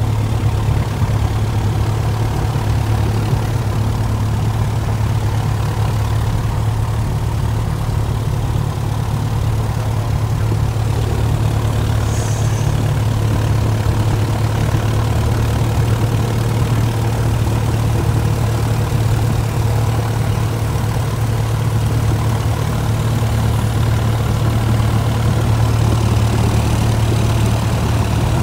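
Light single-engine airplane's piston engine and propeller running at low power while taxiing, a steady low drone heard from inside the cabin.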